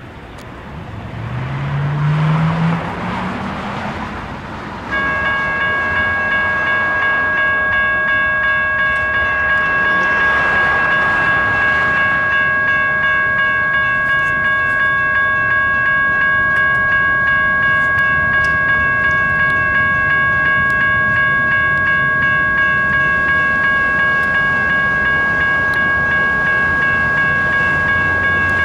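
A car passes with its engine pitch rising. About five seconds in, the railroad crossing's electronic bell (GS Type 1 E-Bell) switches on and rings steadily with a fast, even pulse, warning of an approaching light-rail train.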